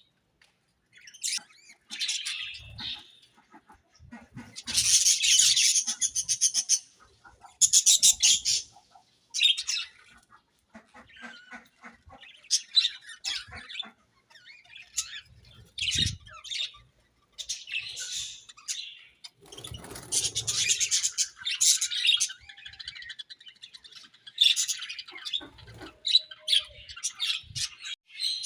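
Budgerigars chirping and chattering in irregular bursts, with louder harsh squawking stretches, and a few soft low knocks among them.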